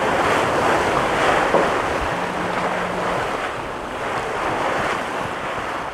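Sailboat under way at sea: water rushing and splashing past the hull with steady wind buffeting the microphone.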